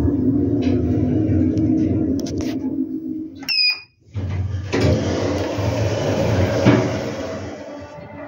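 2005 Schindler 5400 AP machine-room-less traction elevator car in motion, a steady hum and rumble heard from inside the car, then a short high electronic chime about three and a half seconds in. After a brief gap, a steady rush of noise follows and fades toward the end.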